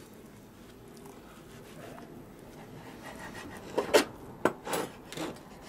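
Kitchen knife slicing a raw fish fillet on a plastic cutting board. It is faint at first, then about four sharp knocks come near the end as the blade strikes the board.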